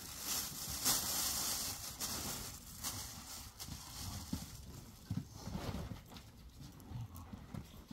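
Open fire crackling in a burn barrel as cloth and wood burn, a steady haze of small irregular snaps and pops. There is a louder burst of rustling noise in the first couple of seconds.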